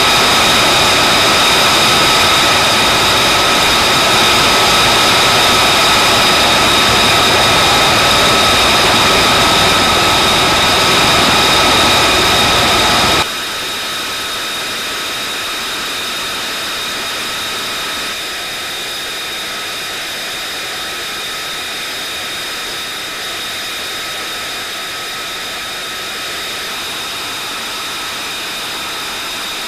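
Jet engine running steadily at idle: a constant high whine over a roar. About thirteen seconds in the level drops suddenly, and the same whine carries on more quietly.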